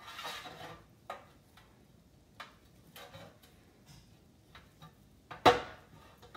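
Metal rotisserie spit rod and forks clinking and scraping against a stainless steel drip tray as the spit is handled. There is a short scrape at the start, a few scattered light clicks, and one sharp loud clank about five and a half seconds in.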